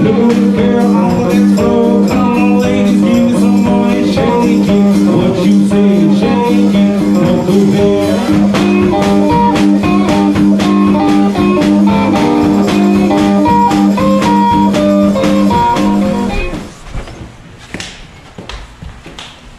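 Background music: a guitar-led blues tune that stops abruptly about three-quarters of the way through. Quieter room sound with a few soft knocks follows.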